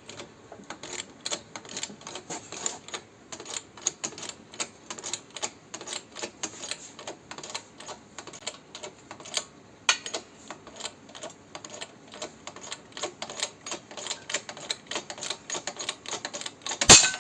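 Rapid sharp metal knocks, several a second and uneven in strength, as the front wheel hub is driven out of the steering knuckle, with one much louder bang near the end.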